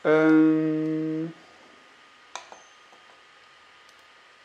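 A man's voice holding one flat, steady hesitation sound for just over a second, then a single sharp click about two seconds in.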